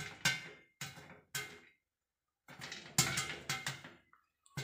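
Popcorn kernels popping inside a covered pot, the pops striking the steel lid in quick clusters, with a pause of about a second midway.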